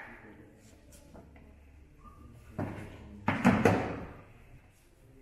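Lid of a plastic vaccine cool box being handled and shut: a knock, then about a second later a louder clatter of two or three knocks.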